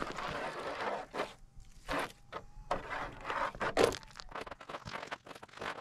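Metal detector coil swept low over rocky, pebbly ground, with rustling and several short scrapes and clicks as it brushes the stones. About two seconds in, a faint steady tone lasts around a second: the detector signalling a shallow metal target.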